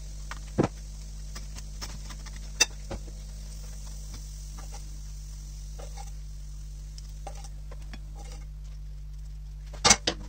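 Light clicks and knocks of a table knife, plates and a plastic margarine tub being handled while a bread roll is spread and filled with rashers. A steady low hum runs underneath. The sharpest knocks come about half a second in, once near the middle, and as a short cluster near the end.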